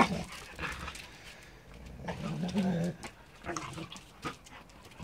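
Two dogs, a Caucasian shepherd puppy and a giant poodle, play-fighting. One dog growls for most of a second about two seconds in, amid scuffling and a few short sharp sounds.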